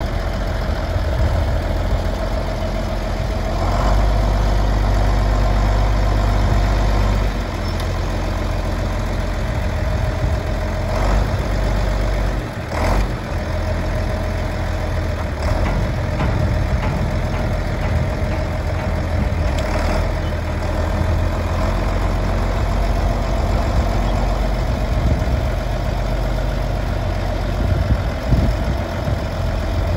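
John Deere 4630's six-cylinder diesel engine idling steadily, a low even rumble with a few brief clicks over it.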